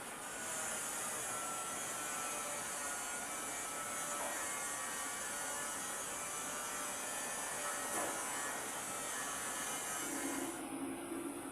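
Stick (SMAW) welding arc crackling and sizzling steadily as a rod burns, then cutting off near the end, leaving a steady low hum.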